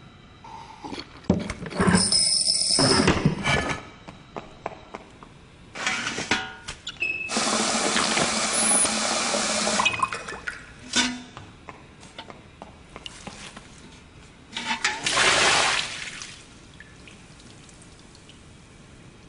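Toilet flushing and water running, heard as several separate bursts of rushing water, the longest lasting about three seconds.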